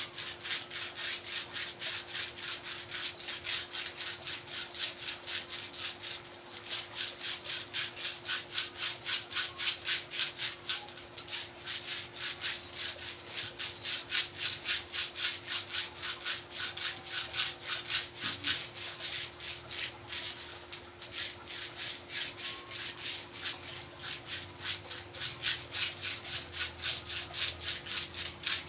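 Massage strokes rubbing back and forth over a patient's skin in a fast, even rhythm of about three strokes a second.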